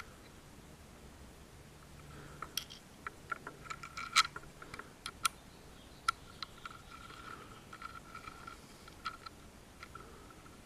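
Scattered light clicks and taps of small parts and hand tools being handled while a DRO read head is fitted to a lathe compound, coming in a cluster over several seconds, the loudest a sharp tap about four seconds in.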